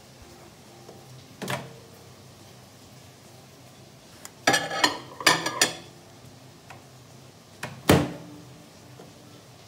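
Microwave oven door clicking open, then a plate clattering in several quick knocks as it is set on the glass turntable, and the door pushed shut with a sharp clunk of its latch near the end.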